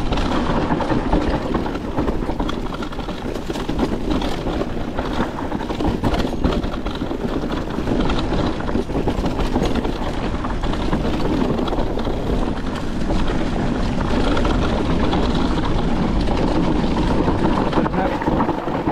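Mountain bike riding down a dirt and rock trail: steady wind noise on the microphone over tyres rolling on the ground, with frequent knocks and rattles from the bike over bumps.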